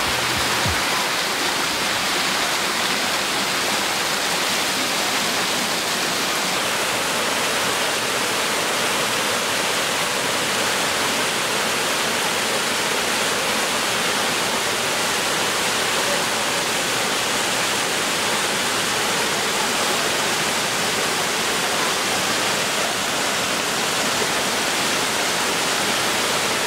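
Mountain stream rushing and splashing over rocks, a steady, unbroken wash of water noise.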